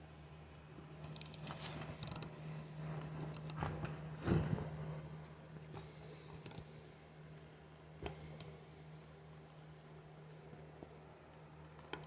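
Metal clinks, clicks and scrapes from handling tree climbing spikes and a tool while tightening their fasteners, the loudest about four seconds in, over a steady low hum.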